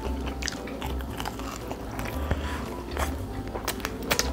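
Close-up biting and chewing of crispy fried chicken, with several sharp crunches of the crust.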